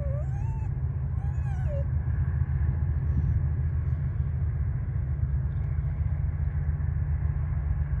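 Steady low rumble, with two short whining animal cries in the first two seconds, each rising then falling.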